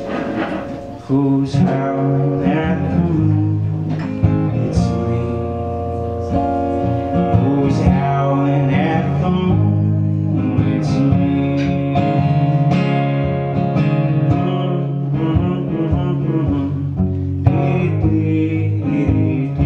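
A man singing over his own acoustic guitar, the guitar strummed and picked under the vocal line.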